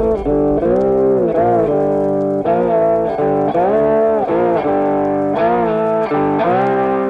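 Background music: a guitar playing a lead line, its notes bending up and down.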